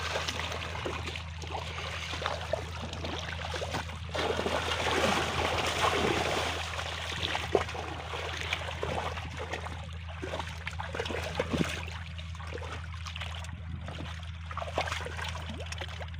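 Shallow muddy water splashing and sloshing as a person wades and gropes through it with bare hands, in many small irregular splashes, louder in the middle. A steady low hum runs underneath.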